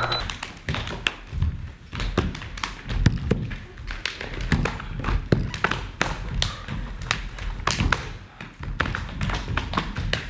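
Irregular tapping and soft thudding, with sharp clicks and dull low knocks several times a second at uneven spacing.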